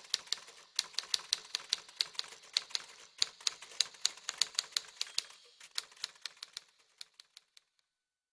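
Typewriter keys clacking in an irregular run of sharp strikes, several a second, thinning out and stopping near the end.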